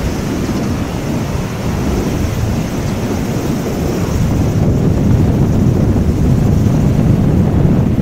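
Twin-engine jet airliner on final approach, its engine noise growing slowly louder as it nears, mixed with heavy wind buffeting on the microphone from strong typhoon gusts.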